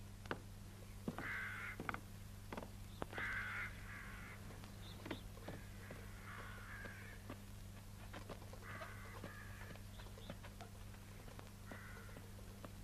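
Crows cawing off and on, one or two short caws at a time, with scattered faint clicks over a steady low hum.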